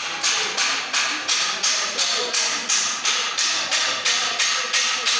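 Steady hammering on a construction site: rapid, even blows, about three a second.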